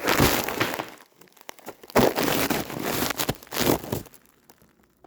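Rustling, crinkling handling noise close to the microphone, in two loud bursts: one in the first second, another from about two to four seconds in.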